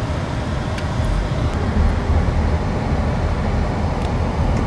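Steady low rumble of a car on the move, road and engine noise heard from inside the vehicle.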